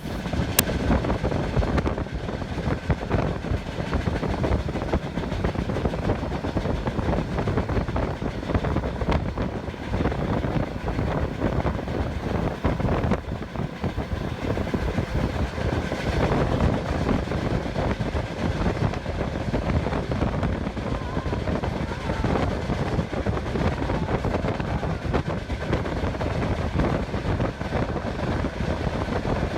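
Steady rumbling and rattling of a moving vehicle, with many small irregular knocks throughout.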